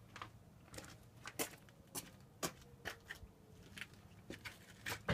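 Faint, scattered clicks and light taps, about one every half second, over a quiet background.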